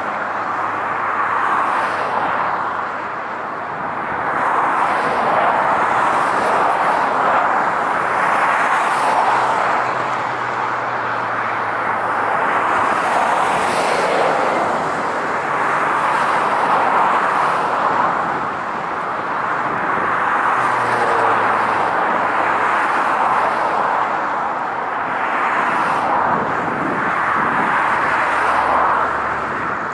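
Boeing 777-200ER's twin GE90 engines running at taxi thrust as the airliner turns onto the runway and lines up: a steady rushing hum that swells and fades every few seconds.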